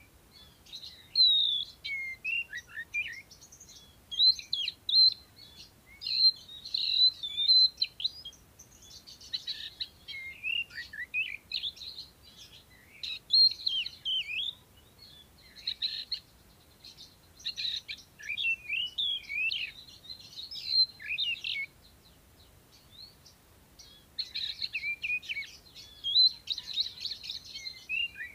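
Oriental magpie-robin singing: a long, varied run of quick whistles and chirps in short phrases, with a couple of brief pauses.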